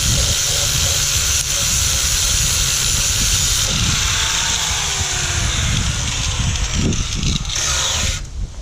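Stick (arc) welder's arc burning with a steady hiss while a bead is laid on steel plate; it cuts off sharply about eight seconds in as the arc is broken.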